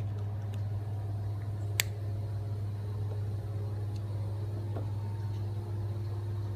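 Steady low drone of rooftop air-conditioning units running, with a single sharp click a little under two seconds in.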